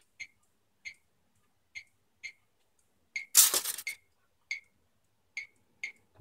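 Soft ticks repeating about once or twice a second from a vinyl record playing through the silent gap between tracks on an Aiwa LX-11 turntable. A brief, louder rustle about three seconds in.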